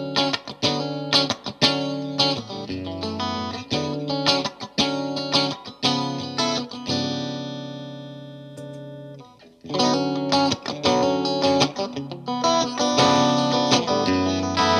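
Electric guitar (a '57 Stratocaster) played through an MXR Duke of Tone overdrive pedal in boost mode into a Vox AC15 on its clean channel. It plays picked notes and chords, then lets a chord ring out and fade. After a brief break about two-thirds of the way through, the playing starts again with the pedal switched on.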